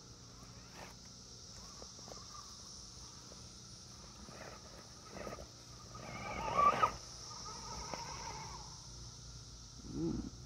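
Element Gatekeeper RC rock crawler's electric motor and geared drivetrain whining under load in short spurts as it climbs a steep root section. The loudest spurt comes about two-thirds of the way in and rises in pitch.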